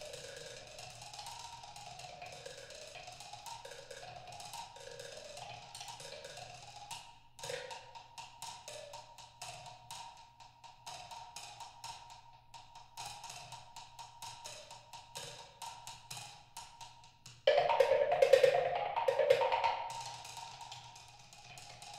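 Wood blocks played with sticks in a fast, soft running pattern that steps up and down in pitch, thinning to scattered taps. A little past three-quarters through, a sudden loud run of hard strikes comes in and then dies away.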